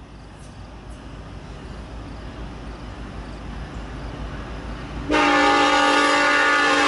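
Norfolk Southern diesel locomotive approaching, its low rumble growing steadily louder, then its air horn sounding a loud, sustained chord starting about five seconds in.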